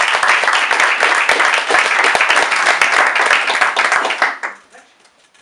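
A small audience clapping, dense and loud, dying away abruptly about four seconds in.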